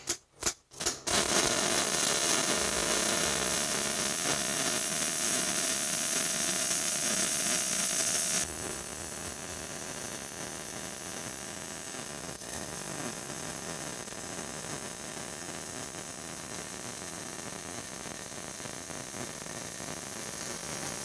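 MIG welding arc with solid hard wire laying the root pass on a steel pipe joint: a few short stuttering starts in the first second, then the arc runs steadily.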